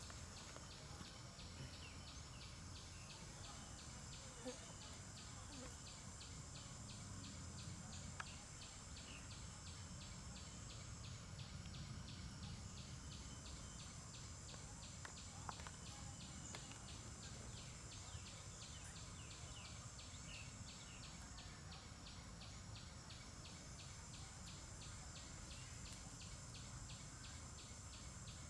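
Faint insect chorus in the forest: a fast, even pulsing trill, with a steady high buzz above it that swells and fades slightly.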